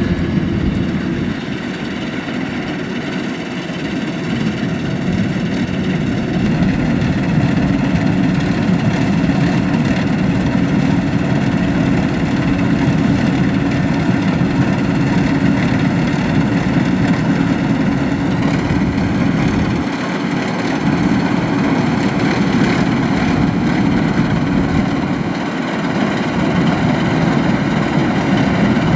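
Kubota DC-93 combine harvester's four-cylinder turbocharged diesel engine running steadily, its level dipping briefly a few times.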